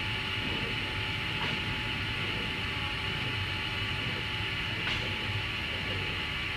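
Rig-mounted spray gun spraying resin onto a fiberglass tank: a steady hiss over a constant machinery hum.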